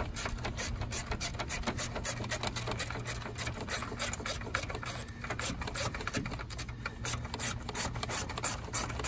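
Hand ratchet clicking rapidly as it turns the battery hold-down bolt down, about six clicks a second, over a low steady hum.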